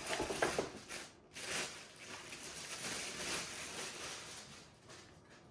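Clear plastic packaging bag crinkling and rustling as it is pulled open and off a new cordless drill, in uneven bursts that fade toward the end.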